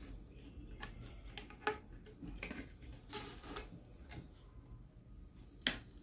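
Plastic car-vacuum attachments and a corrugated plastic extension hose being handled and fitted together: scattered light clicks and taps, with a sharper knock shortly before the end.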